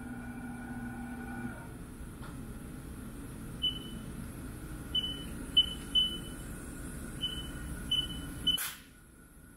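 Haas VF-4 CNC mill's control keypad beeping as keys are pressed: seven short high beeps over the machine's steady running hum. A whine with several tones stops about a second and a half in. Near the end a click is heard and the hum cuts out.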